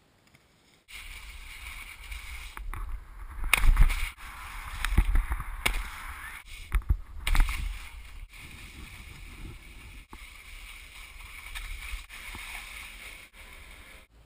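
Wind rushing over an action camera's microphone while skiing: a steady noisy hiss with a deep rumble. Several loud buffets come in the middle, and the sound breaks off abruptly at each cut between clips.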